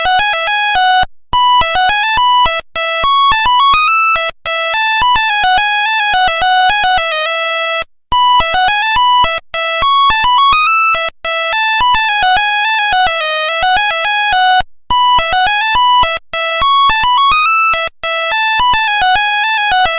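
Nokia 1100 monophonic ringtone: one line of short beeping electronic notes playing a melody. The phrase loops about three times, with a brief break between repeats.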